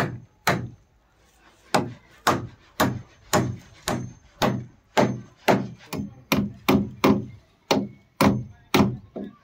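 Steel-handled hammer striking the top of a wooden stake again and again, driving it in tight under wooden roof shuttering. The blows come about two a second, with a short gap about a second in.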